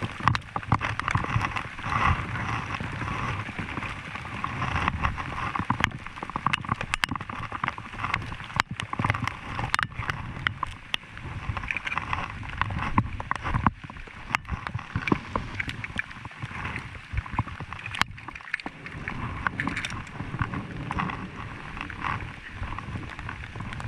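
Heavy rain, with drops striking close to the microphone as many irregular sharp taps over a steady rushing noise.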